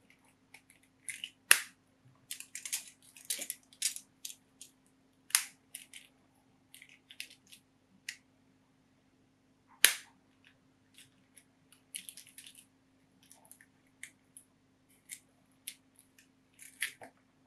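Hard plastic phone case halves clicking and snapping onto a Samsung Galaxy Z Flip as they are fitted and pressed home, a scatter of small plastic clicks and taps. Two sharp snaps stand out, about a second and a half in and near ten seconds.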